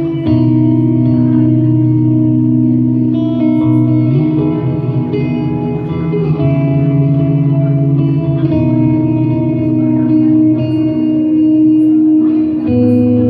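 Electric guitar played through a Line 6 HX Stomp effects processor: sustained ambient chords washed in reverb and delay, the chord changing every two to three seconds.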